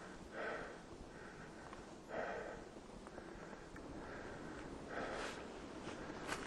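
A hiker's hard breathing under a pack: a few audible breaths, the clearest about half a second in, about two seconds in and about five seconds in, over a faint steady hiss.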